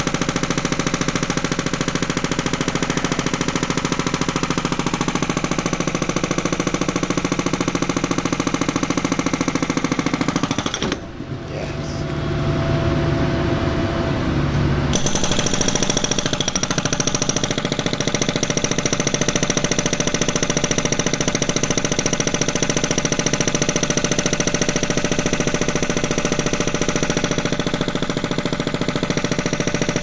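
Hydraulic breaker on a CAT mini excavator hammering a concrete slab in a rapid, continuous stream of blows. About eleven seconds in, the hammering stops for roughly four seconds, leaving a steady machine hum, then starts again.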